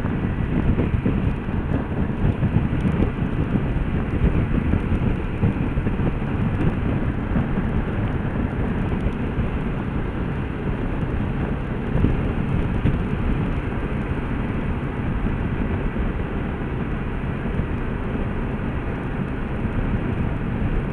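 Motorcycle riding at a steady cruising speed: a constant rumble of wind buffeting the microphone, with engine and tyre noise underneath.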